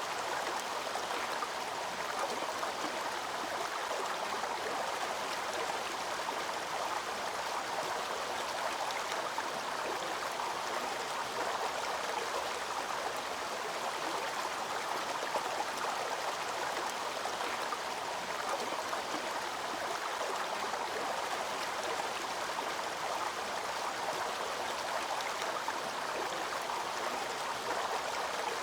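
Waterfall's water rushing and splashing steadily, an even, unbroken wash of noise.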